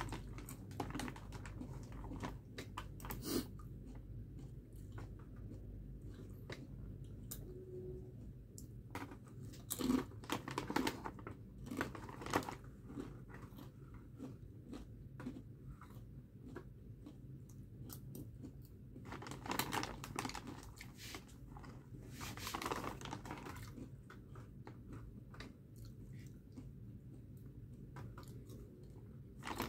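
Chips being crunched and chewed at close range, a steady run of small crackly bites, with louder bouts of crunching and rustling now and then as a hand goes into the chip bag.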